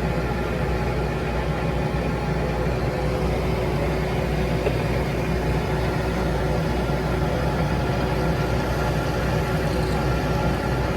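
A metal lathe running steadily: an even mechanical hum with a few faint steady tones and no distinct strikes.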